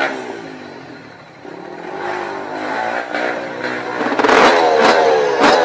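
Yamaha 125 two-stroke dirt bike engine revved in bursts as the bike is walked up a steep rut. The revs sag at first, then climb again and fall away repeatedly, with a few sharp knocks near the end.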